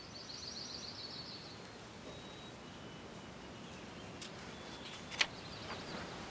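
Birds singing over a faint outdoor background, with a quick high trill in the first second and a half and a few thin high calls after it. A single sharp click sounds about five seconds in.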